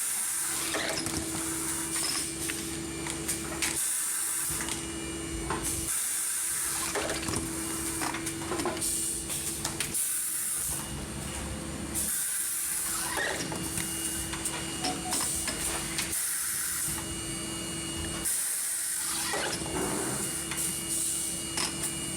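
Fully automatic plastic spin welding machine for water-filter housings running through repeated weld cycles: a steady motor hum that drops out briefly between cycles, about every six seconds, with bursts of air hiss.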